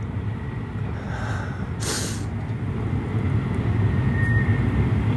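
Steady low vehicle rumble that slowly grows louder, with a brief hiss about two seconds in.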